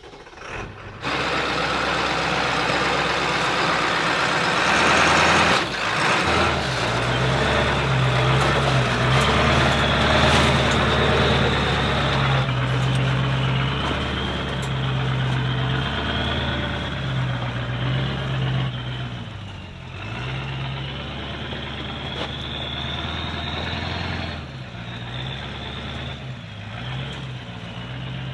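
A 1996 Ford F-350's 7.3 L Powerstroke turbo-diesel working under load at low speed, climbing a steep rocky trail in four-wheel drive and a low gear. The engine note starts abruptly about a second in and swells and eases as the throttle changes, with a high whine rising and falling above it.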